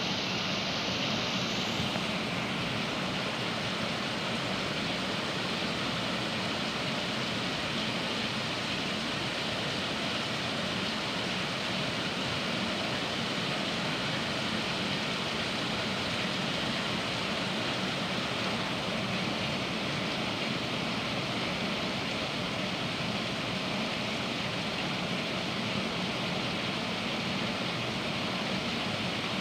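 Heavy rain pouring down in strong gusting wind: a dense, steady rush of noise.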